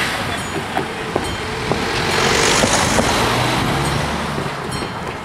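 Cars driving past close by over the level crossing, engines and tyres loudest about two to three seconds in. Over them the crossing's warning bell rings in quick, even strikes, plainer near the end.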